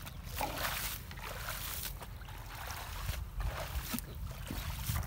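Shallow muddy water sloshing and splashing in irregular bursts as hands grope through water hyacinth and mud for fish.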